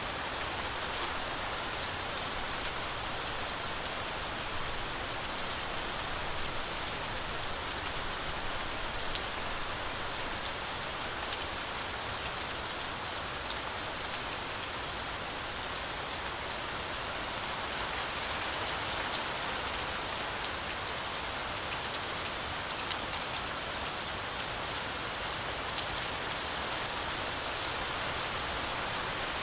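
Heavy rain falling steadily through a forest canopy, an even hiss of rainfall with scattered drop impacts.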